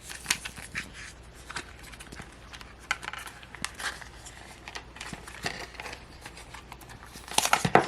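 Cardboard and paper packaging being handled and opened: scattered light rustles and clicks, with a louder burst of crinkling near the end.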